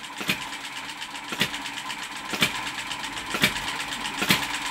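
Model ball-top hit-and-miss engine running, with a sharp knock about once a second over the light, steady whir of the belt-driven reduction pulleys and the Ferris wheel it is driving. It is running unlaboured.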